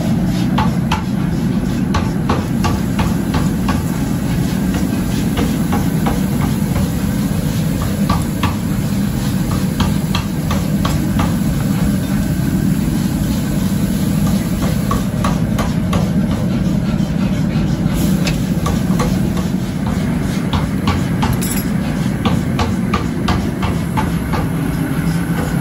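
Steady low machinery rumble in a forging workshop, with frequent irregular light metallic clicks and taps over it.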